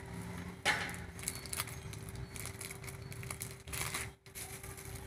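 Rustling and knocking of small electronic parts being handled on the bench, with a sharp knock about two-thirds of a second in and more rustling near the end, over a faint steady hum.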